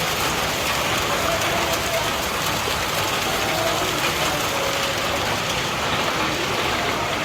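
Heavy rain falling steadily, an even hiss of water pouring down without letting up.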